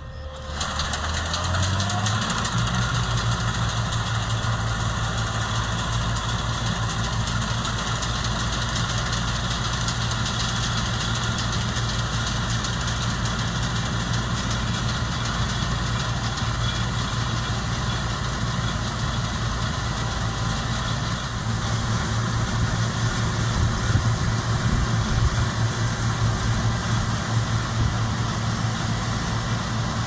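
Laverda M304 combine harvester running while cutting wheat: the engine speeds up to working revs in the first two seconds, then runs steadily under load with a wide hiss from the cutting and threshing gear over the engine hum. It gets a little louder about two-thirds of the way through.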